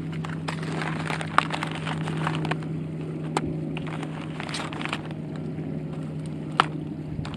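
Plastic-and-cardboard fishing lure packages rustling and crackling as they are handled, with a few sharp clicks, over a steady low hum.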